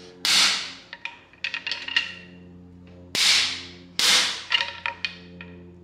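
Sharp metal-on-metal strikes on an LS2 engine block's internals while knocking loose a camshaft jammed by broken connecting-rod pieces: three heavy blows, one just as it begins and two close together about three and four seconds in, each ringing briefly, with lighter clinks and taps between.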